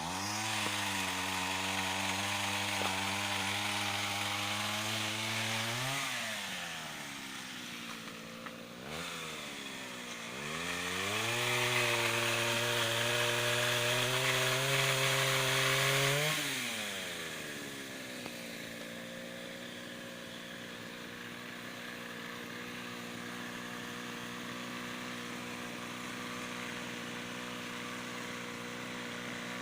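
Mitsubishi TL26 two-stroke brush-cutter engine driving a pole saw. It runs at high revs for about six seconds, drops back, blips once, revs up again for about five seconds, then falls to a steady idle.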